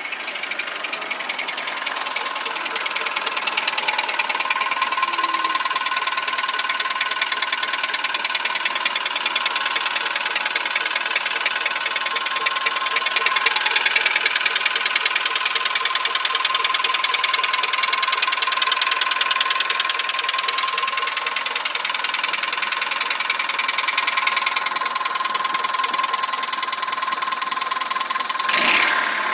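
Engine running with a fast, steady knocking, which the owner takes for piston slap, over a steady whine. There is a single sharp loud noise near the end.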